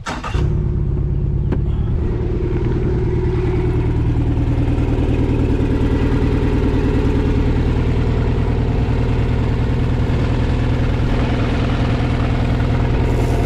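Mercury 90 outboard motor idling steadily on flushing muffs, coming in suddenly just after the start and holding an even, unchanging running note.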